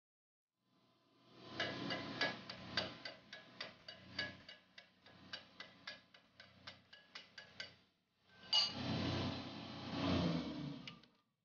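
Chipping hammer tapping slag off a fresh weld on a steel round bar, a quick run of sharp metallic knocks about three or four a second. Near the end there are a couple of seconds of a steadier scraping noise.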